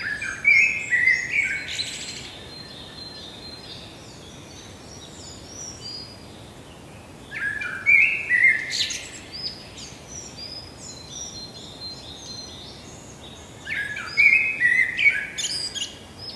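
Birdsong: a bird sings a loud stepped phrase three times, about seven seconds apart, over steady smaller chirping.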